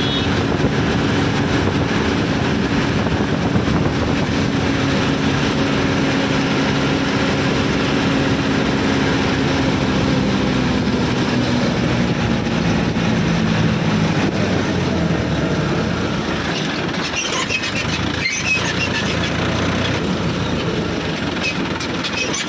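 Heavy vehicle's diesel engine running steadily; about halfway through its pitch falls gradually as the engine slows down.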